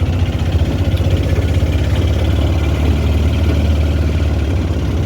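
Vehicle engine running steadily, a low pulsing hum.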